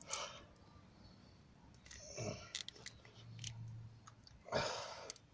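Faint scattered clicks and scrapes of hands working a stuck rubber vacuum hose on its connector, with a breathy exhale of effort near the end.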